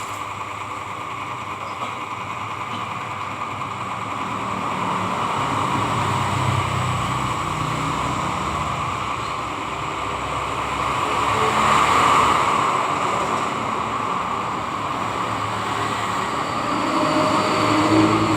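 Steady scraping hiss of a machine blade being rubbed by hand on oiled emery paper, swelling and easing in loudness.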